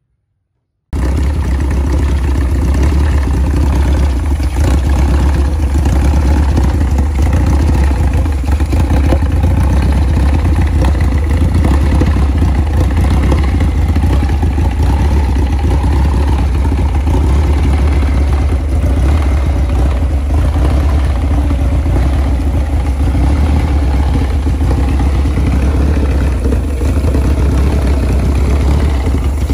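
Supercharged scrap car engine running steadily at an even speed with a deep, constant drone. It cuts in abruptly about a second in.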